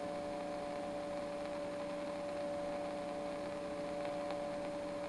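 Tram Titan tube CB base station's receiver putting out a steady hum of a few even tones over a faint hiss, with no station coming through on a quiet channel.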